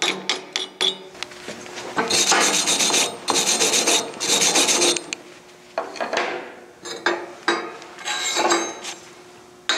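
Slag hammer chipping slag off a fresh tack weld on a steel flange in a quick run of taps, then a steel brush scrubbing the weld in several bouts of rasping strokes.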